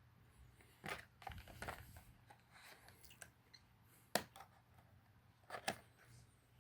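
Faint handling of a cardboard toy box and its packaging: light rustling with a few sharp clicks, about a second in, around four seconds in and again about a second later.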